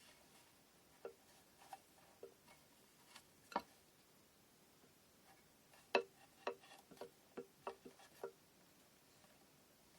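Light, irregular clicks and taps of kumihimo braiding gear being handled, a few spread out at first, then a quick run of them in the second half.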